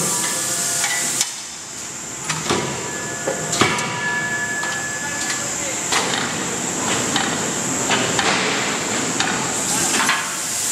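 Irregular metallic clanks and knocks of tools and metal parts being handled on a large forging hammer, some ringing briefly, over a steady high hiss.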